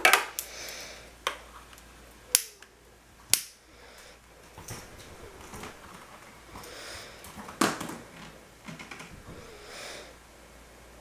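Long-necked butane utility lighter clicking as its trigger is sparked to light candle wicks: sharp single clicks, the first four about a second apart and another a few seconds later.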